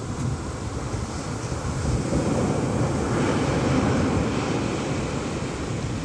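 Atlantic surf washing up onto a sandy beach and draining back, the hiss of the wave swelling about two seconds in and easing toward the end. Wind buffets the microphone underneath.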